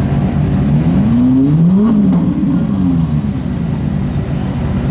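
Supercar engine idling, revved twice in quick succession about a second in, the revs rising and then falling back to idle.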